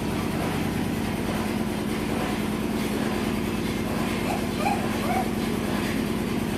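A steady, unbroken low droning rumble with a constant hum, and a few short faint higher-pitched blips in its second half.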